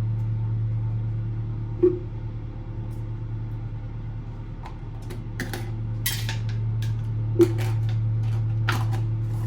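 A steady low hum throughout, with two sharp taps, one about two seconds in and one about seven seconds in, and several light clicks and rustles in the second half, from skincare containers and toner pads being handled.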